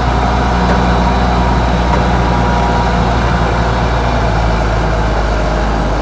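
A heavy truck engine running steadily at idle: a loud, unbroken low rumble with a steady hum that starts and stops abruptly.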